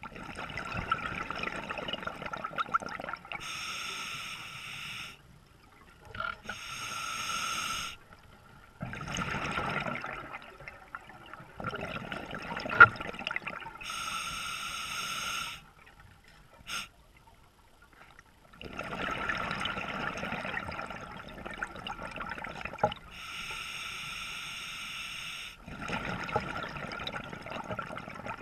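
A scuba diver breathing through an open-circuit regulator underwater, about four breaths: a hissing draw on each inhale, then a longer rush of exhaled bubbles, with short quiet pauses between breaths. A sharp click sounds about halfway through.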